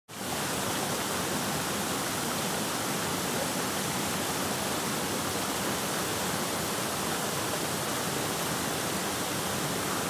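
Steady rush of a waterfall and rocky stream: an even hiss of running water that does not change.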